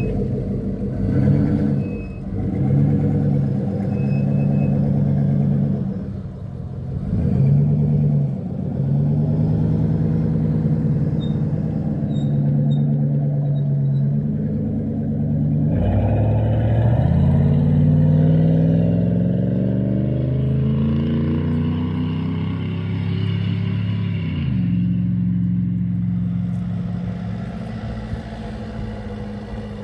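Off-road 4x4 SUV engine revving under load on a muddy track. There are short rev bursts that rise and fall for several seconds, then a long climb in revs that drops away sharply near the end and settles at a steadier pitch.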